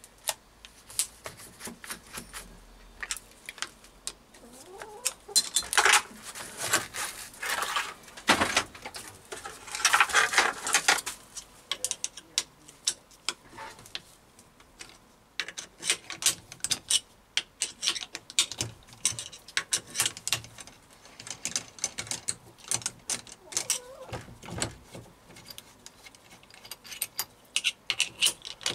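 Irregular clicks, clinks and knocks of steel parts being handled as a drill is taken off a lathe toolpost drill attachment and a diamond lapping table fixture is fitted into the toolpost. There are two louder, longer rattling stretches about six and ten seconds in.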